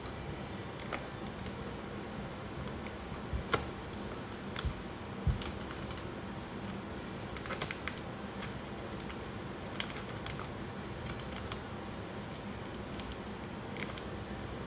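Scattered light clicks and taps of fingernails and a plastic transfer sheet as vinyl pieces are pressed onto a tumbler, with a few louder taps about four to five seconds in, over a steady low room hum.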